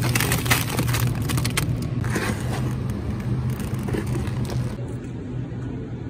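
Steady low hum and rumble of a supermarket, with crinkling of plastic packaging as a bag of frozen shrimp is taken from a shelf box in the first second and a half, and a few more rustles later.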